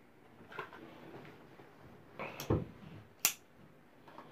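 Small plastic and metal shower-valve repair parts and their packet handled in the hands: faint rustling, a soft knock about two and a half seconds in, and a sharp click just after.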